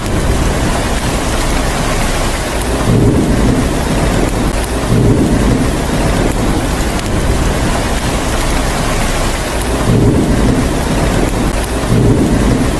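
Steady heavy rain with low rolling thunder rumbles that swell up several times.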